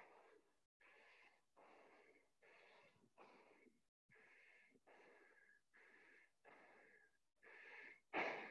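Faint, rapid heavy breathing of someone catching their breath after burpees, about three breaths every two seconds, each with a thin whistle in it; the breaths get louder near the end.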